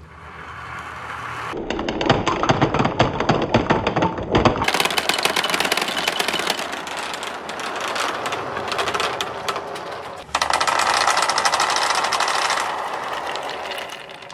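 Dozens of plastic balls rolling and clattering down perforated pegboard ramps, a dense, rapid rattle of knocks against the boards and against each other. The clatter changes abruptly a few times.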